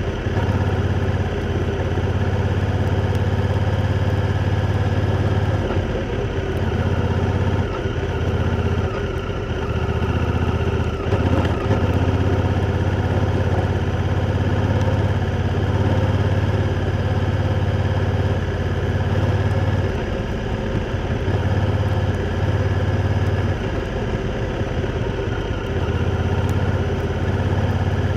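Honda Africa Twin's parallel-twin engine running as the motorcycle is ridden. The engine note eases off and picks up again several times.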